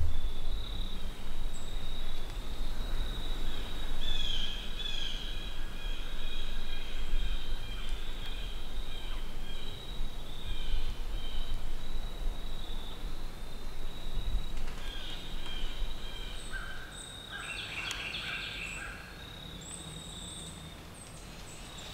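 Woodland ambience: insects trilling steadily at a high pitch, with spells of chirping calls over it and a low rumble that dies down near the end.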